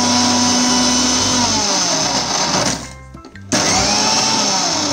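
Electric mixer grinder's motor grinding Bourbon biscuits and sugar to powder in its steel jar, run in two bursts. It winds down with a falling whine about a second and a half in, stops briefly, then starts again at full speed about three and a half seconds in.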